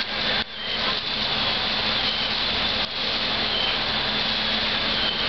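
Fire engine running steadily while its pump supplies the hose lines: a constant roar with a faint high whine over it, dropping out briefly twice.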